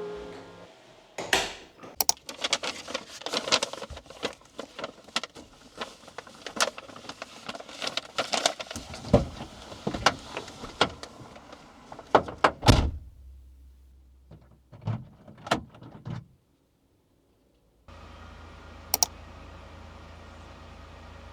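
A long run of irregular clicks, knocks and clatters, with a louder knock about 12 s in. After a brief break comes a steady low hum with a single click.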